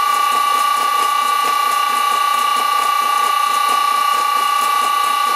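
Lathe's electric motor driven by an old Allen-Bradley VFD at 60 Hz, giving off a loud, steady, high-pitched whine with several fainter steady tones above it: the VFD noise the owner calls horrible sounding.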